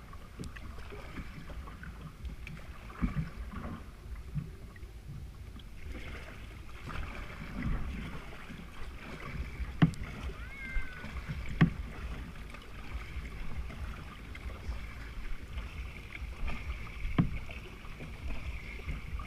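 Blue plastic tandem kayak on the water: steady low rumble of water and wind around the hull-mounted camera, broken by a few sharp knocks, two loud ones about halfway through and another near the end.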